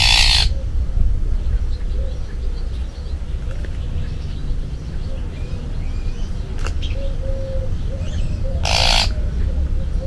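Two harsh, raspy magpie calls, one at the start and one near the end, each under a second long. Faint small bird chirps and a steady low rumble run underneath.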